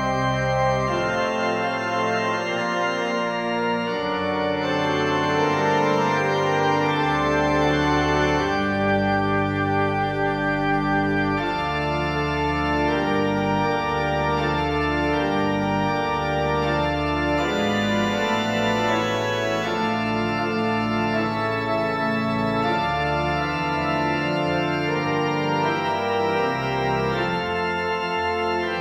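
Background music of slow, sustained chords, with held notes and a bass line that change every second or two.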